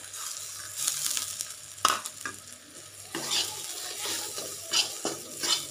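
Steel spatula stirring and scraping spiced sweet corn masala around a hot oiled kadai, the mixture sizzling as it is roasted, with a sharp clink of metal on the pan about two seconds in.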